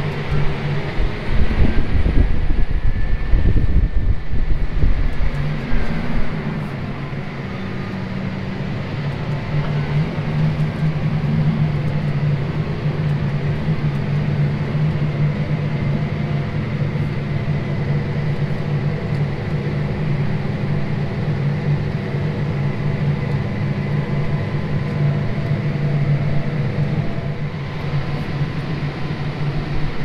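Versatile DeltaTrack 570 tractor's engine running steadily under load, heard from inside the cab as it pulls a grain cart across the field, with a heavier low rumble for the first few seconds.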